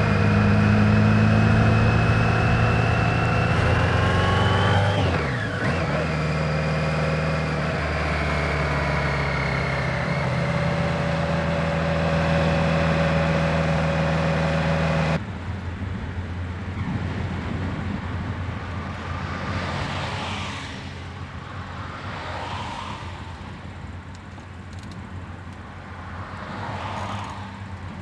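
Car engine accelerating, its pitch climbing and then falling away at a gear change about five seconds in, then running steadily at speed. About halfway through it cuts off abruptly to quieter driving noise, with a few whooshes of passing traffic.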